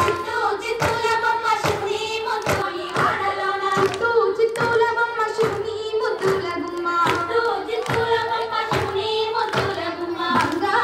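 A group of women singing a Bathukamma folk song together, clapping their hands in a steady rhythm.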